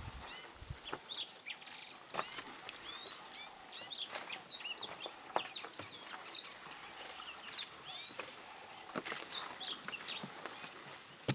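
Many small birds chirping in quick, short, high notes that rise and fall, calling over one another, with a few sharp clicks in between.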